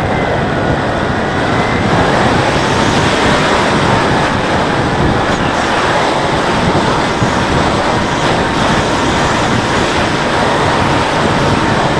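Rushing wind over an onboard camera on a Bixler 3 RC plane gliding in to land, with the faint steady whine of its electric motor at reduced throttle.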